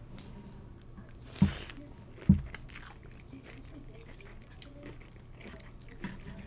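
Close-miked eating of instant pho noodle soup: soft chewing and mouth clicks, with two loud thumps about a second and a half and two and a half seconds in.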